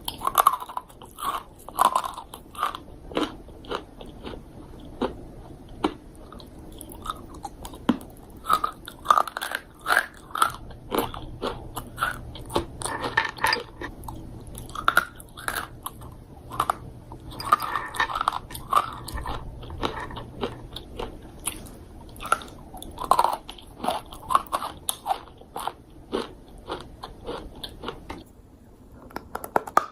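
Close-miked biting and chewing of crunchy dried fruit: a steady stream of sharp, irregular crunches.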